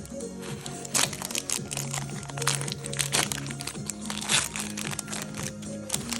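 Background music with irregular crinkling and crackling of a Pokémon booster pack's foil wrapper being handled and torn open.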